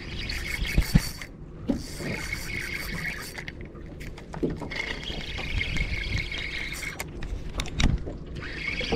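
A fishing reel whirring in four stretches of a second or two each as a hooked fish is played on the line, with a few knocks against the boat.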